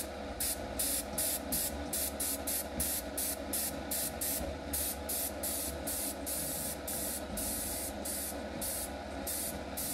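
Airbrush spraying thinned paint, its hiss starting and stopping in quick repeated bursts as the trigger is worked, with a few longer sprays. A steady low hum runs underneath.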